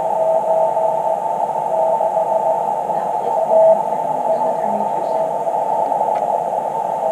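Morse code (CW) from an amateur radio receiver: a single steady beep keyed on and off in dots and dashes, in short runs, over a bed of band hiss. One louder, longer tone sounds about three and a half seconds in.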